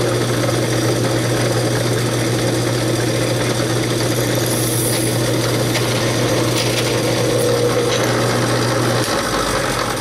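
Drill press running, its small number 53 bit drilling the detent-ball hole through a folding knife's lock bar. A steady motor hum that cuts off about nine seconds in.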